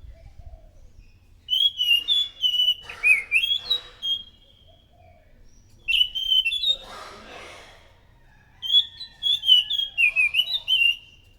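Anis macan thrush singing loud, rapid phrases of varied whistled notes, in three bursts with short pauses between them. A brief rasping hiss follows the second burst.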